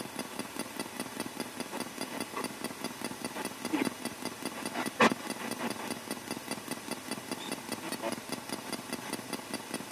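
Spirit box sweeping through radio stations: choppy static pulsing several times a second. A brief voice-like radio fragment about four seconds in is taken for a spirit answering "yeah", and there is a sharp click about five seconds in.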